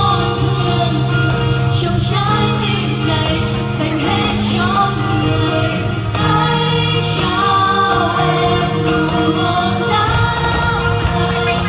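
Pop music with singing: held, wavering sung notes over sustained bass notes that change every couple of seconds.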